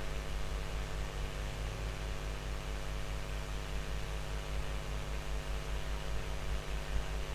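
Overhead electric fan running: a steady whooshing noise with a low hum and a fluttering low throb.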